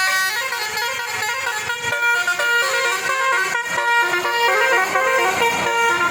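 Basuri musical bus horn playing a fast tune, its notes stepping up and down every fraction of a second with several tones sounding together.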